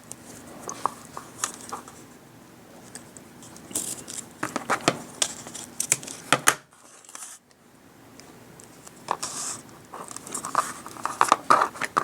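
Craft materials being handled and cut by hand: irregular sharp clicks, snips and crinkling rustles, busiest around the middle and again near the end.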